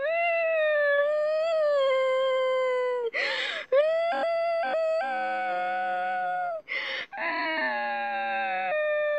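A boy wailing in long, high drawn-out cries, each a few seconds long and sagging slowly in pitch, broken twice by sharp gasping breaths.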